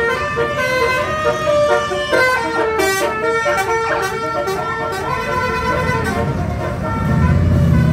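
Bus 'telolet' multi-tone horn playing a tune: several horn tones sound together and switch pitch in quick steps. The horn stops about six seconds in, and a low engine rumble grows louder near the end.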